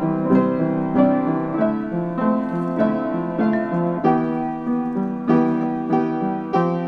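Background piano music, a melody of struck notes that ring and fade one after another.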